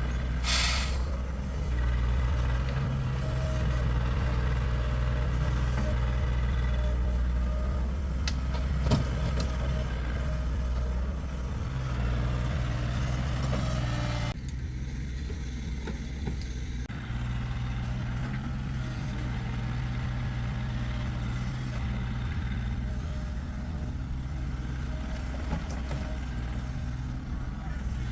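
A vehicle engine running steadily with a low, even drone, with a couple of sharp clicks about eight and nine seconds in.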